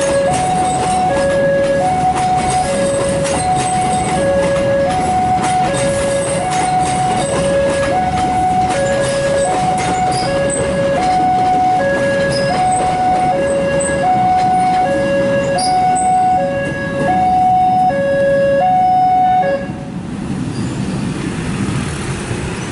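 Railway level-crossing warning alarm sounding a steady two-note low-high electronic tone over and over, over the rumble of a passing train and traffic; the alarm stops near the end.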